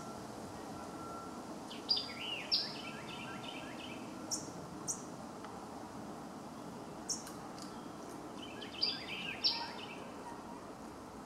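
Wild birds calling over a steady outdoor background hiss. Twice, about seven seconds apart, a bird gives a phrase of a sharp high note followed by a quick run of lower chirps. Single short high chips sound in between.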